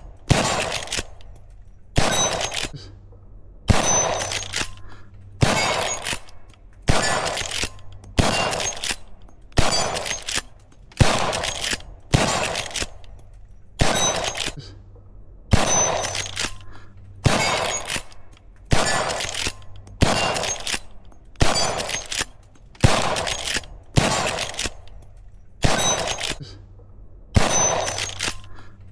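Henry lever-action rifle chambered in .357 Magnum/.38 Special firing a steady string of shots, about one every second and a half. Each shot is sharp and dies away in a ringing tail before the next.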